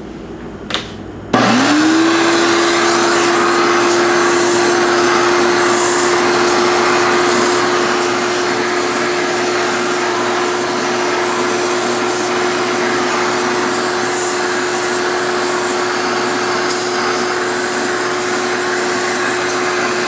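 Shop vac switched on about a second and a half in: its motor spins up quickly to a steady whine and runs on loudly with rushing air, vacuuming lint and dust off a refrigerator's condenser coil.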